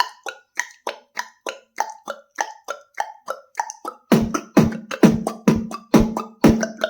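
Beatboxed imitation of a table tennis rally: an even series of hollow mouth clicks, about three a second. About four seconds in, louder, deeper strokes take over at about two a second, with a low hum under them.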